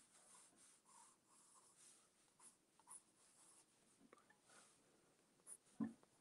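Faint scratching of a coloured pencil sketching on paper, in short irregular strokes, with one soft knock near the end that is the loudest sound.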